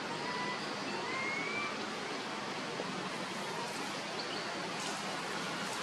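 Steady outdoor background hiss, with faint thin whistled calls in the first second or so, one rising in pitch.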